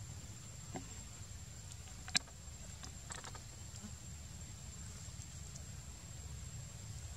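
Quiet outdoor ambience: a steady low rumble and a thin, steady high-pitched whine, with a few sharp clicks, the loudest about two seconds in and a short cluster about a second later.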